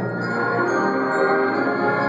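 High school symphonic band playing held, sustained chords.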